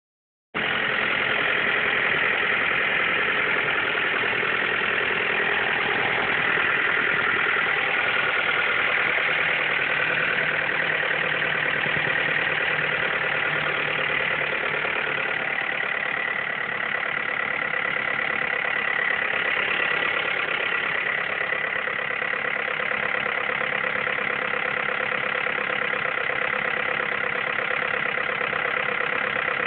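Mazda 3's 2.3-litre four-cylinder engine idling steadily with a weird noise that began after a rebuild with a new cylinder head.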